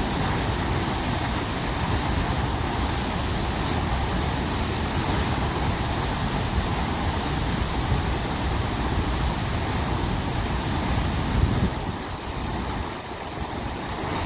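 Huka Falls on the Waikato River: a huge volume of water thundering out of a narrow rock gorge into a churning pool, a steady, loud rush of whitewater that eases slightly near the end.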